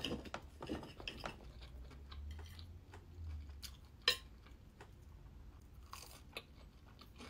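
Knife and fork clicking against a plate while cutting cheese-topped toast, with a sharp clink about four seconds in, then a crunchy bite of the toast and chewing close to the microphone.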